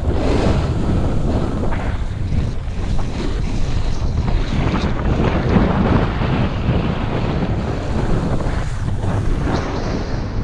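Wind buffeting the microphone of a camera moving downhill at speed on a ski slope: a loud, steady rushing noise.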